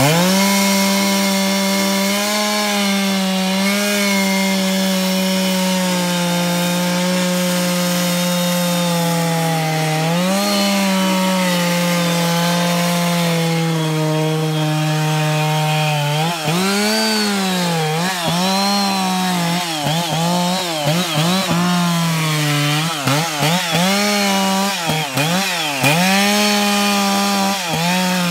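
Gasoline chainsaw cutting into a red oak trunk behind the felling notch, its engine held at a steady high pitch under load for about sixteen seconds. After that the throttle is repeatedly let off and squeezed again, so the engine note drops and rises about once a second.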